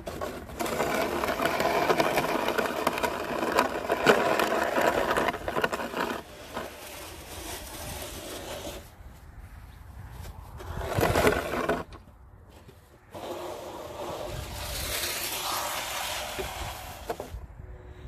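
Plastic snow shovel blade scraping along asphalt as it pushes snow, in three strokes: a long one of about five seconds, a short one about halfway through, and another of about four seconds near the end.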